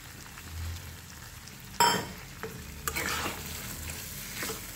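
Mutton fat sizzling in its masala in a kadhai, being stirred with a spatula that scrapes against the pan. A single sharp metal clank comes about two seconds in.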